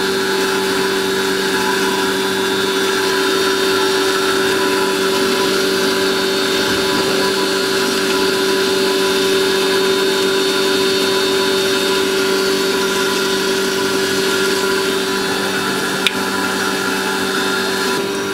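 Wooden-cabinet domestic flour mill (atta chakki) grinding wheat into flour: a steady electric motor hum with the even noise of the grinding. One sharp click about sixteen seconds in.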